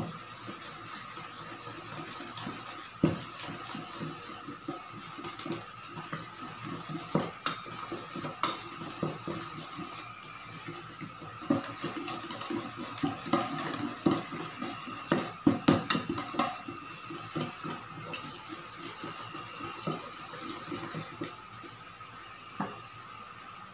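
Wire balloon whisk beating a runny cream filling in a stainless steel bowl: its wires click and scrape against the metal in quick, irregular strokes, with a thicker flurry of clinks about two thirds of the way through.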